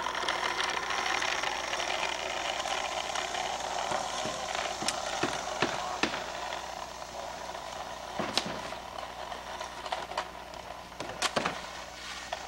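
Small pull wagon's wheels rattling steadily over asphalt as it is towed by a rope, with a few sharp knocks now and then.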